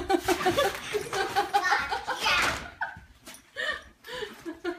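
People laughing and giggling, in quick repeated pulses, dying down after about two and a half seconds, with a few shorter laughs near the end.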